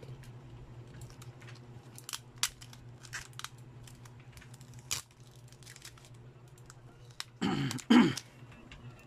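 Hands handling a disassembled smartphone's display and midframe assembly: scattered light clicks and taps of plastic and metal parts, then two louder crinkling rustles near the end, over a steady low hum.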